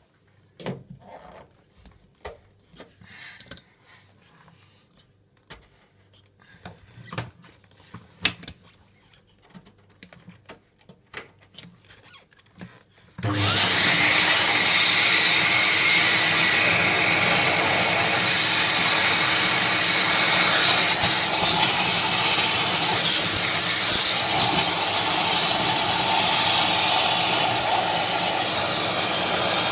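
Scattered clicks and knocks of handling, then just before halfway a vintage Hoover Aquamaster wet-and-dry vacuum cleaner is switched on and runs steadily and loudly.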